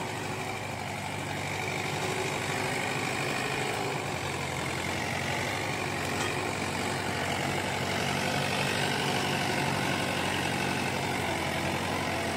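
Mahindra 575 DI tractor's four-cylinder diesel engine running steadily under heavy load as it drags a sugarcane trolley of about 75 quintals through soft ploughed soil.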